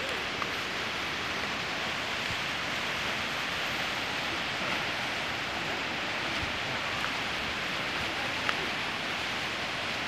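Steady rushing hiss of a waterfall's falling water, even and unbroken, with a few faint clicks over it.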